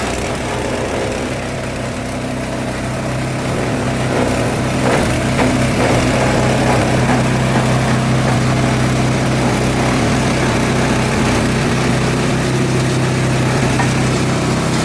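G-20 shredder-grinder running steadily as it chops and grinds elephant grass through a 15 mm screen. It is a loud, even machine hum that rises slightly a few seconds in.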